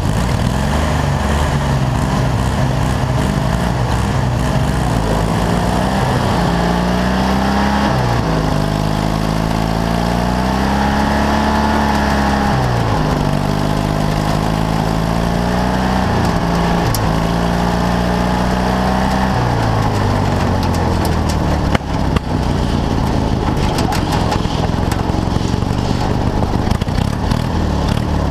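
Racing lawn tractor engines running and revving: the engine pitch climbs and drops several times, as in runs down the track. For the last third there is a steady rough engine noise with a few sharp clicks.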